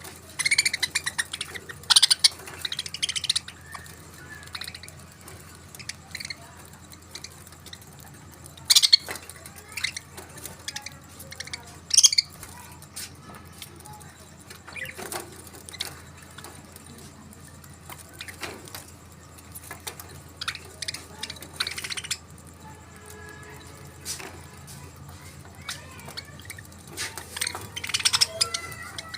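Budgerigars chirping and chattering in scattered bursts, with sharp high calls every few seconds over a steady low hum.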